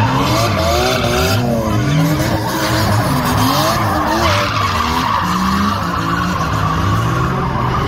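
A drift car's engine revving up and down over and over as its rear tyres squeal, sliding sideways on asphalt.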